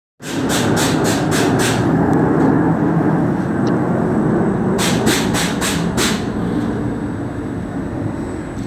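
A mechanical replugging machine for seedling plug trays running with a loud steady mechanical din. Twice, a quick run of about five short sharp hissing clicks, roughly four a second, rises above it.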